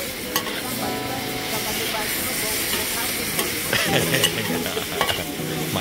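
Diced goat meat sizzling as it fries in a large wok, stirred with a long metal spatula that scrapes against the pan now and then. The meat is just starting to cook through.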